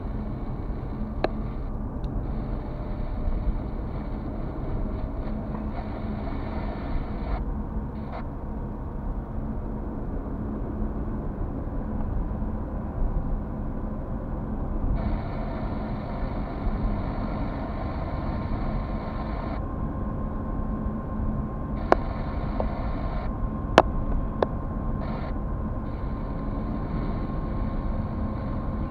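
Car driving steadily, heard from inside the cabin: a steady low rumble of engine and tyre noise. A few sharp clicks stand out, the loudest about 24 seconds in.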